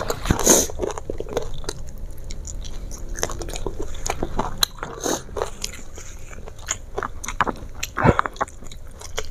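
Close-up mouth sounds of someone chewing crispy fried food, with irregular crunches and wet chewing clicks; a louder crunch comes about half a second in and another near the end.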